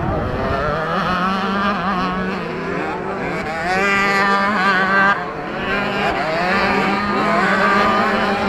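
Several 65cc two-stroke motocross bikes racing, their engines revving up and down over one another with a steadier low engine note underneath. The sound swells for a moment about halfway through, then drops off sharply.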